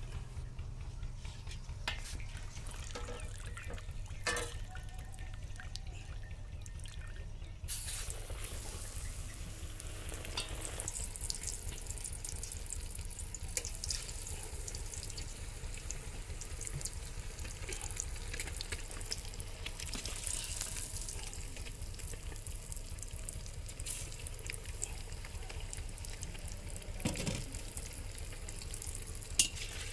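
Gram-flour-battered egg pieces frying in hot oil: a steady sizzle that sets in about eight seconds in and carries on, over a constant low rumble. A few sharp clicks come before the sizzle starts.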